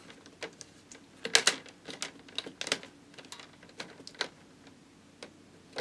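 The plastic screen bezel of a Dell Vostro 3460 laptop being pressed back onto the lid, its clips snapping in as a scatter of sharp, irregular clicks.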